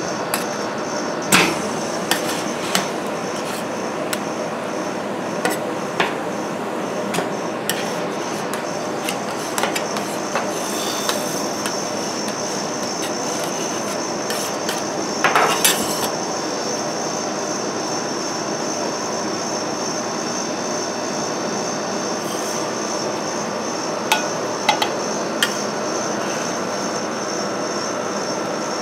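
Metal spatulas scraping and clinking against a stainless steel ice-cream cold plate. There are scattered sharp taps, a quick cluster of them about halfway through, over a steady hiss.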